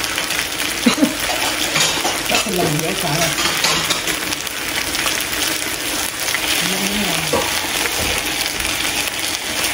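Beef sizzling as it cooks, a steady crackling hiss, with low voices talking briefly in the background.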